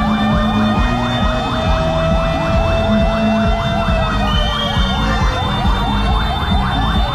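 Several fire truck sirens sounding together in a convoy. Fast yelping sweeps overlap slower rising and falling wails, over a steady low rumble of engines.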